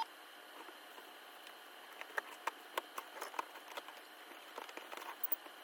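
A single sharp click, then a run of light, irregular clicks and taps a couple of seconds in, over a faint steady hiss.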